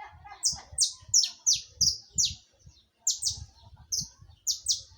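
Saffron finch (canário-da-terra) singing: a run of sharp, high notes, each sweeping steeply downward, about two to three a second, with a short break about halfway through.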